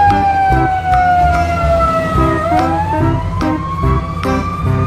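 Ambulance siren wailing: a slow falling tone that turns about halfway through and rises again.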